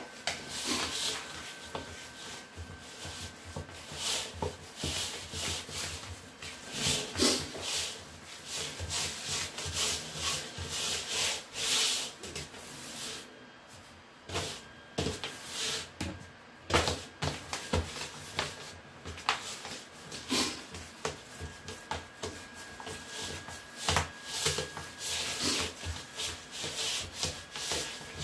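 Hands pressing and stretching pizza dough across a metal pizza pan: irregular rubbing and scraping strokes, with a few sharper knocks.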